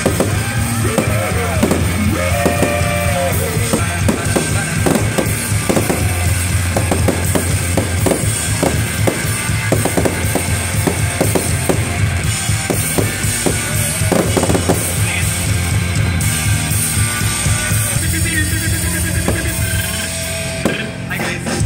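Loud music with a drum beat and held bass notes, mixed with the sharp bangs and crackle of aerial fireworks bursting.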